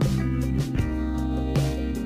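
Background instrumental music with guitar, notes struck at a steady pace.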